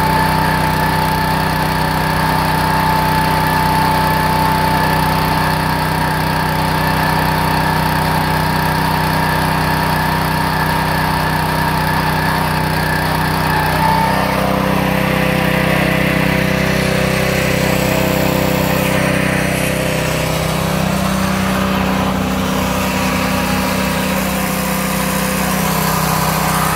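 Small petrol engine of a portable truck-wheel polishing machine running steadily, driving a spinning polishing head against an aluminium wheel. The engine note shifts about halfway through.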